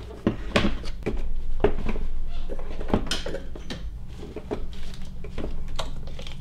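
Irregular knocks, clicks and rattles of the plastic air filter box being handled and lifted out of an engine bay, over a steady low hum.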